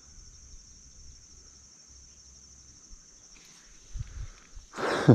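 Insects trilling steadily in one high-pitched band, typical of crickets. About four seconds in come a few low knocks, and near the end a short, loud rush of noise is the loudest sound.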